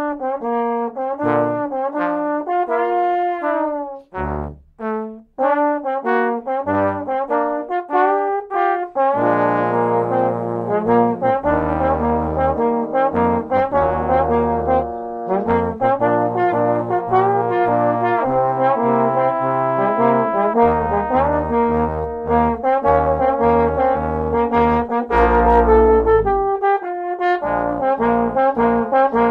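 Trombone quartet of three tenor trombones and a bass trombone playing an arranged pop ballad. A single trombone carries the melody over a few short low notes at first, then about nine seconds in the full quartet comes in with held chords and a bass trombone line, pausing briefly near the end before going on.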